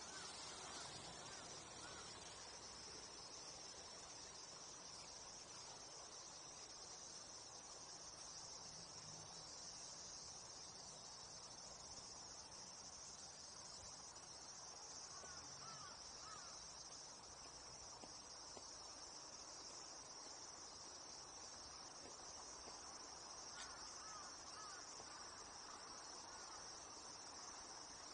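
Steady, high-pitched insect chorus, crickets or similar, droning without a break, with a few brief faint calls now and then.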